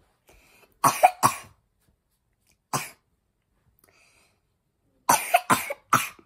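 Pretend coughing, voiced by a reader acting out the coughs printed in the comic: two coughs about a second in, a single one near three seconds, and a quick run of three near the end.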